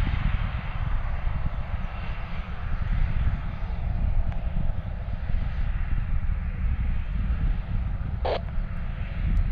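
A Boeing 737 airliner's jet engines running with a steady rushing noise as it rolls along the runway after touchdown.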